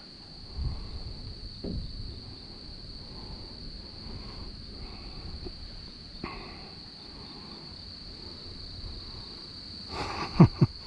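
Steady, continuous high-pitched drone of insects in the field, with faint handling thuds and a few brief, louder sharp sounds near the end.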